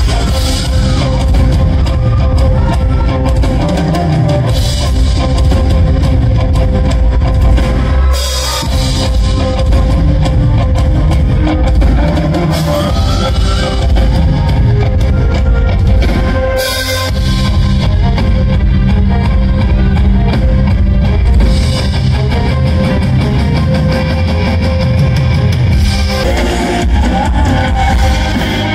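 Live rock band playing loudly with a drum kit and electric guitar, heard from the crowd, with two brief breaks in the bass and drums about 8 and 17 seconds in.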